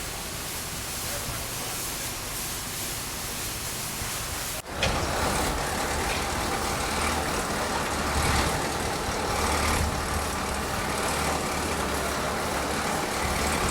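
Outdoor background noise that steps up sharply about four and a half seconds in, with a steady low rumble like a motor vehicle's engine running.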